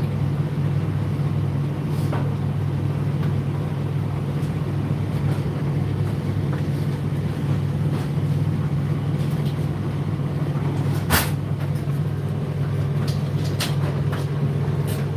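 Indesit IDC8T3 condenser tumble dryer running mid-cycle: a steady low motor and fan hum with the drum turning. A few sharp clicks break through, the loudest about eleven seconds in.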